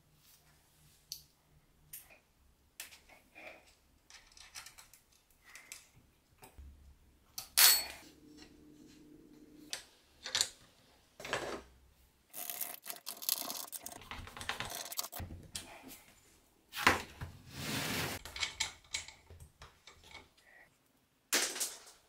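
Bench work on metal parts: scattered clicks, clinks and knocks of tools and metal pieces being handled, with two longer stretches of harsh continuous noise about halfway through and again about three quarters of the way in.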